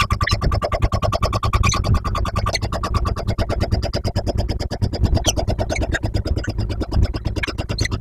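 Jackhammer pounding steadily in rapid, even blows, about a dozen a second.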